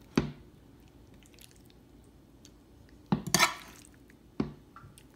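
A metal serving spoon scooping creamy penne in a stone-coated frying pan, knocking and scraping against the pan: one sharp knock near the start, a cluster of clinks and scrapes a little past three seconds in, and one more knock about a second later.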